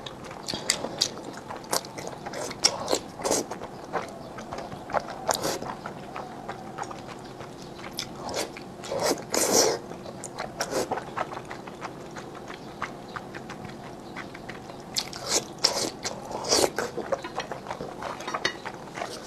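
Close-up mouth sounds of someone eating a thick, chewy starch noodle (fen haozi) from chili-oil broth: wet chewing clicks throughout, with long slurps about nine seconds in and again near the end.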